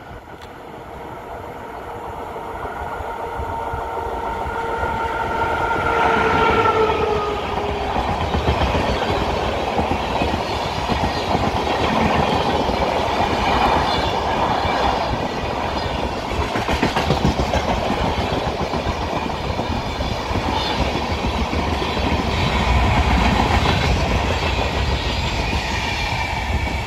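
WAP-5 electric locomotive of the Howrah–Dehradun Kumbha Express sounding its horn for about five seconds as it approaches, the pitch dropping as it passes. Then its passenger coaches rush by at about 55 km/h with a steady rumble and the clickety-clack of wheels over the rail joints.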